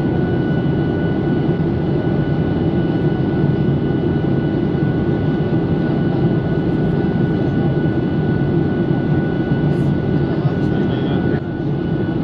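Steady airliner cabin noise in cruise flight: a dense, even drone of jet engines and airflow, with a few thin steady whines above it. The level dips slightly just before the end.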